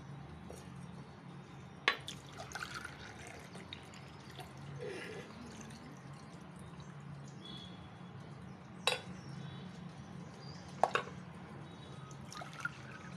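Water being poured and splashing into a ceramic mug and a stainless steel pressure cooker while cups of water are measured in, with three sharp clinks of the mug against the steel pot over a steady low hum.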